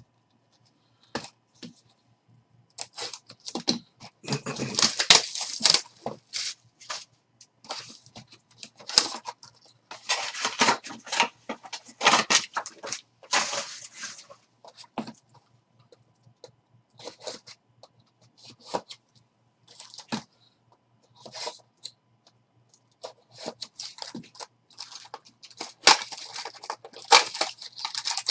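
A box of 2020 Topps Finest baseball cards being unwrapped and opened: irregular crinkling and tearing of its plastic wrap in several bursts, and near the end the cardboard flap pulled open.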